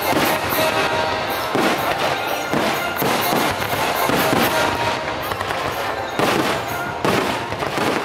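Fireworks shells bursting in irregular succession over music from the show's soundtrack.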